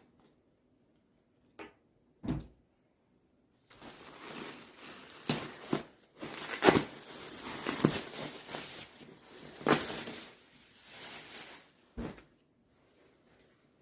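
Rustling and handling noise with scattered sharp knocks and clicks, after a few isolated knocks in the first couple of seconds.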